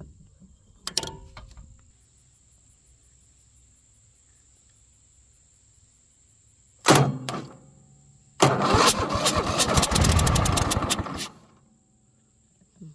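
Riding mower starter motor, fed straight from the battery by a jumper cable, cranks in a short burst, then cranks again and the engine catches and runs for about three seconds before cutting off abruptly as the cable is pulled away. Turning over when powered directly shows the starter is good.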